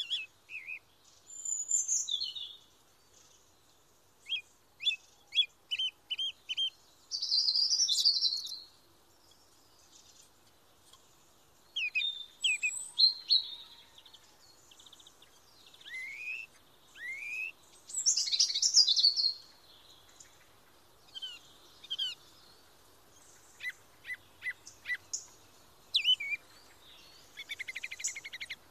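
Songbirds singing: separate phrases of short chirps, quick runs of repeated notes, slurred whistles and trills, with short quiet gaps between phrases.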